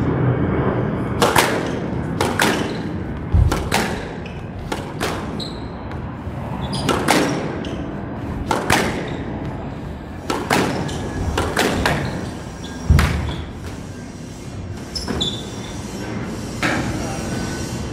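Squash rally: sharp racket strikes on the ball, many followed closely by the ball smacking the wall, about a dozen in quick succession, thinning out after about 13 seconds. A steady outdoor background rumble runs underneath.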